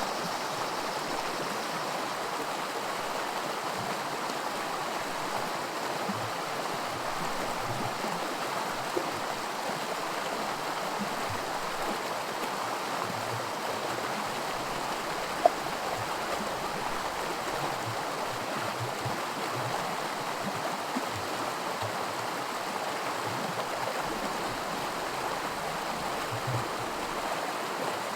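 Small creek rapids: shallow water running steadily over rocks, an even rushing with light gurgles. A single brief sharp click stands out about halfway through.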